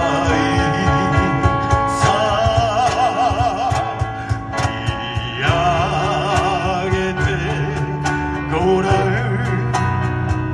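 Live song: a singer holds long notes with a wide vibrato over instrumental accompaniment, which has a steady plucked rhythm.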